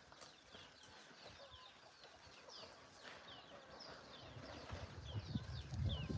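Faint chirping of birds: many short, high, falling notes. A low rumble grows in over the last two seconds.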